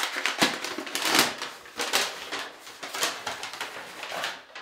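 Crumpled brown kraft packing paper crinkling and rustling as it is handled and pulled from a box, in irregular sharp crackles that die away near the end.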